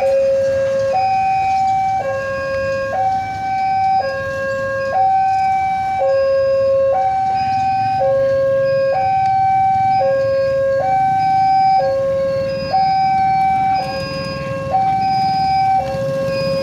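Railway level-crossing warning alarm sounding a repeating two-tone hi-lo signal, each tone held about a second, warning that a train is approaching while the barrier is down. A low hum of waiting motorcycle traffic runs underneath.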